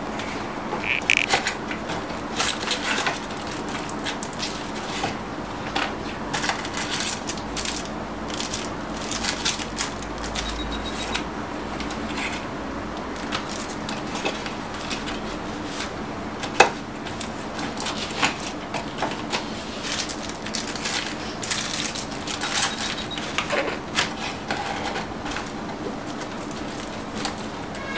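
Cardboard box, paper inserts and plastic wrapping being handled: irregular rustling and crinkling with scattered clicks, taps and scrapes, and one sharper knock about two-thirds of the way through. A faint steady hum runs underneath.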